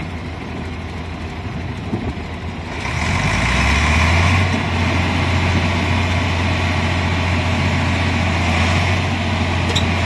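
Heavy diesel engine running, then revving up about three seconds in and holding a loud, deep, steady drone.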